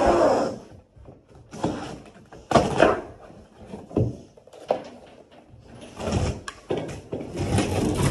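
Old wall-to-wall carpet being ripped up from the floor by hand: a series of tearing, scraping pulls and rustling as the cut pieces are peeled back and lifted.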